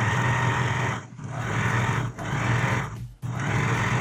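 Usha Janome Dream Stitch electric sewing machine running and stitching a seam in fabric, in four short runs with brief stops about a second apart.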